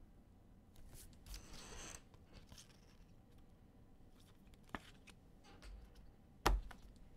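Trading cards being handled: faint sliding and rustling with scattered light clicks, a brief rasp about a second and a half in and a sharper tap near the end.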